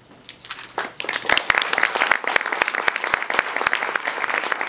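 Audience applauding: a few scattered claps that quickly swell into full, dense applause about a second in.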